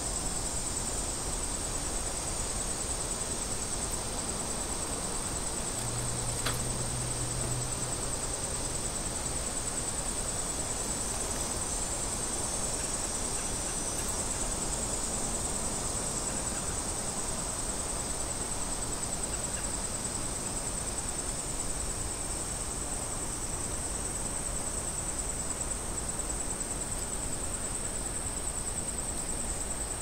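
Cicadas buzzing in one steady, unbroken high-pitched drone with a fine fast pulse.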